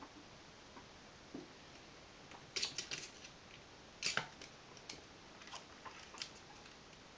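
A ferret's claws scrabbling and tapping on a wooden shelf and cardboard game boxes as it climbs: a cluster of sharp clicks about two and a half seconds in, a louder one around four seconds, then a few scattered taps.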